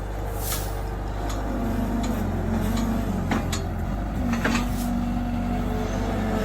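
Engine of a machine running steadily with a low hum, with a few sharp clanks about half a second in and again between three and four and a half seconds in.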